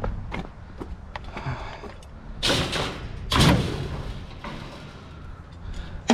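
Scrap items being handled and loaded: a few light knocks, then two heavy bangs about a second apart, and another sharp bang near the end.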